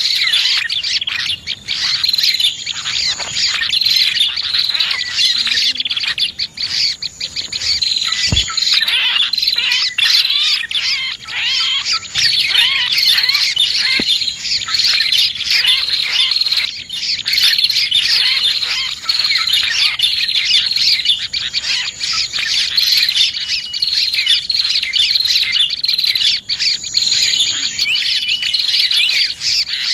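Dense, continuous chorus of rapid high chirps and twitters from prenjak (prinias) and other small birds, as used for a bird-lure call.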